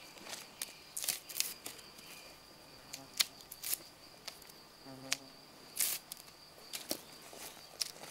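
A knife scraping and stripping a long wooden stick: a dozen or so sharp, irregular strokes. A steady high insect trill runs behind them.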